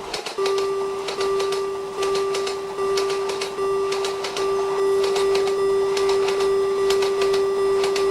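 Level-crossing warning bell ringing: a steady pitched tone that pulses in an even repeating pattern, with sharp ticks along with it.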